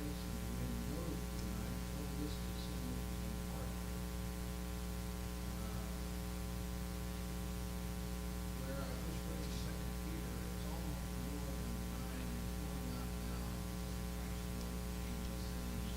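Steady electrical mains hum with many even overtones, running unchanged throughout. Faint, distant speech can be heard underneath it.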